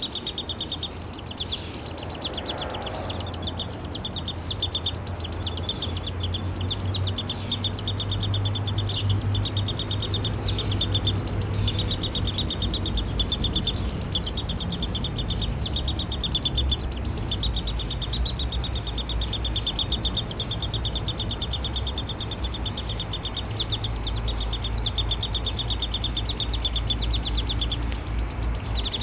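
Downy woodpecker nestling begging while being fed: a continuous, rapid chatter of short, high, buzzy notes, with a few louder stretches.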